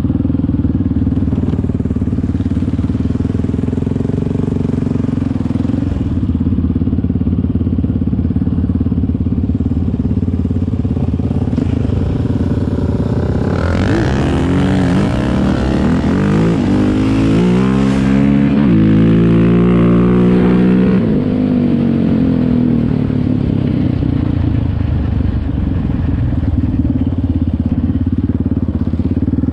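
ATV engine running at a steady drone, then revving hard for about seven seconds from roughly halfway in, its pitch sweeping up and down repeatedly as it pulls up a steep dirt hill. It then settles back to a steady drone.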